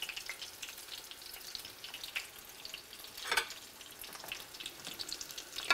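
Flour-and-egg-coated whiting sizzling and crackling in shallow hot oil in a frying pan, with one louder click about halfway through.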